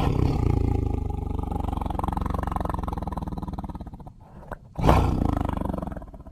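Tiger roaring: one long, deep roar lasting about four seconds, then after a short pause a second roar starting just before five seconds in.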